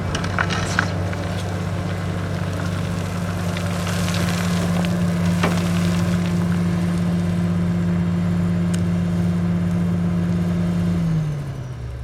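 Komatsu PC450LC-7 excavator's heavy diesel engine running at steady high revs, with a few sharp knocks in the first second and once about halfway. Near the end the revs drop away toward idle.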